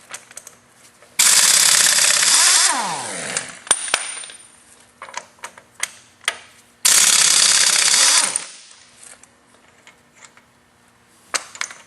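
3/4-inch pneumatic air impact wrench run in reverse to break loose and back off a bolt, in two loud bursts of about a second and a half each. After each burst the air motor winds down in a falling whine, and light clicks and knocks come between the bursts.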